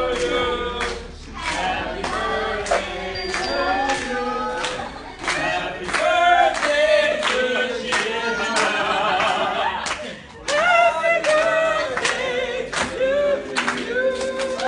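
A small group of people singing together with steady rhythmic hand clapping, a birthday song sung to someone holding a cake with a lit candle.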